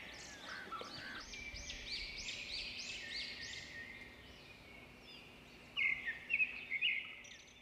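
Birds singing: a quick series of repeated arched notes, then a louder cluster of chirps near the end, over a faint steady background hiss.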